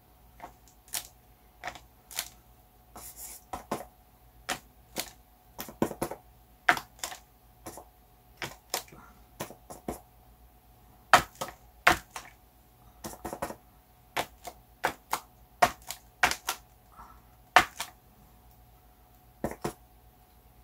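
The rim of a small clear plastic cup tapped repeatedly against the painted board and the paint, stamping rings of paint: irregular sharp taps, one or two a second, with short pauses between runs.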